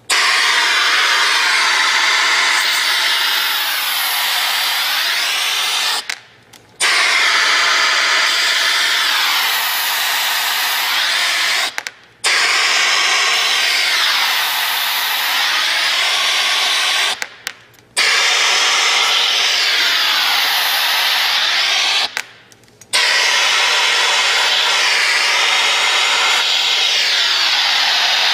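Air-driven Piab vacuum ejector with an SX42 COAX cartridge hissing as it exhausts compressed air and draws suction through a deep 20 mm suction cup. It runs for about five to six seconds at a time, five times, and cuts off briefly between runs. The hiss shifts in tone within each run.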